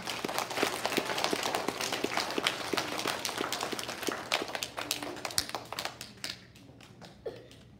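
Audience applauding, many hands clapping together, thinning out and dying away about six seconds in.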